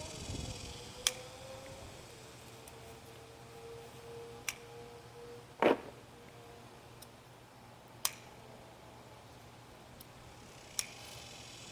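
Sharp clicks and snaps every second or few, as yardlong bean pods are picked from the vine, the loudest about halfway through. A faint steady hum runs underneath for a few seconds.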